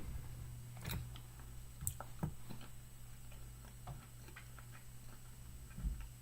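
Faint, irregular clicks and smacks of a person chewing a mouthful of bison meat stick.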